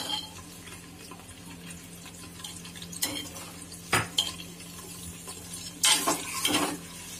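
Sliced onions frying in hot ghee in a pressure cooker, a low sizzle, while a steel ladle stirs them, scraping and knocking against the pot a few times, loudest about four seconds in.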